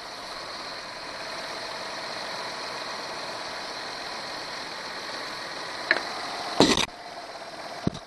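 Nissan Pathfinder engine idling steadily under the open hood, with the air conditioning switched on during a refrigerant recharge. A couple of short knocks come near the end.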